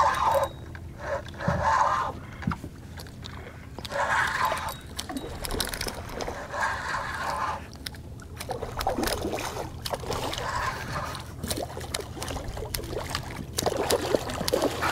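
Spinning reel cranked in short bursts while a hooked redfish pulls on the line, with water sloshing against the boat hull.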